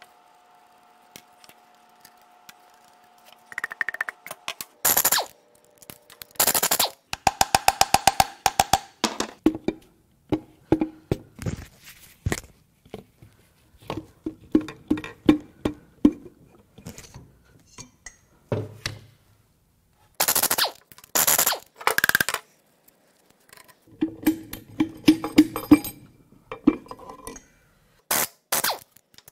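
Repeated hammer strikes on a seized piston and connecting rod in a Toyota 1FZ-FE inline-six block, driving them up out of a rusty cylinder bore. Sharp knocks and clinks come one at a time and in quick runs, some with a short ring.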